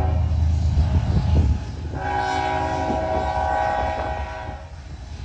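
Diesel locomotive air horn sounding a multi-note chord: a brief note at the start, then a longer blast from about two seconds in that lasts over two seconds. A heavy low train rumble is strongest in the first second and a half.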